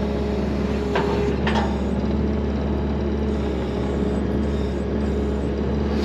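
Skid steer loader's engine running steadily, heard from inside the cab, with a couple of faint knocks about a second in.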